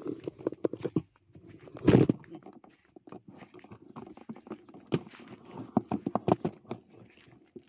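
Close rustling and irregular clicking from something being handled right at the microphone, with a loud rubbing burst about two seconds in.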